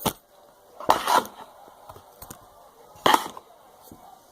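Kinetic sand and a tool being handled: three short knocks and scrapes, at the start, about a second in and about three seconds in.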